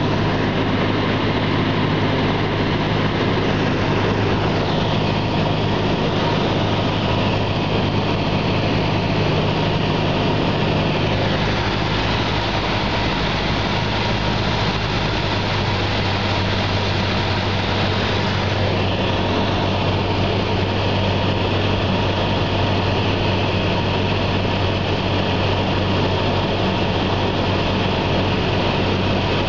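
A Cessna's single piston engine and propeller droning steadily, heard inside the cockpit with rushing air, the engine note shifting slightly a few times.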